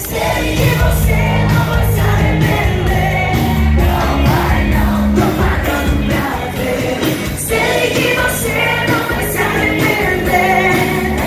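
Live pop music over a club PA: a female singer singing into a microphone over a backing track with heavy bass and a steady beat.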